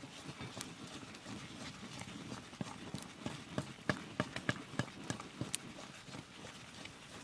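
Wooden stirring stick knocking and scraping against a black iron wok, with a quick run of knocks around the middle. Sharp snaps from the open wood fire under the pan are mixed in.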